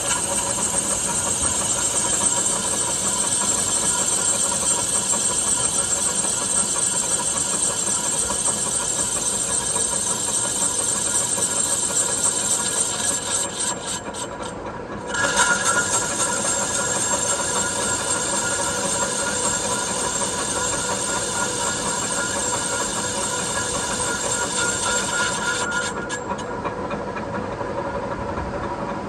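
American Pacemaker engine lathe running while a carbide insert takes a light facing cut across a cast iron part: a steady machine hum with a hiss of cutting and a few held tones. This is a 10-thousandths clean-up pass to remove remaining low spots in the surface. About halfway through the sound dips briefly and comes back with a changed tone, and it steps down slightly near the end.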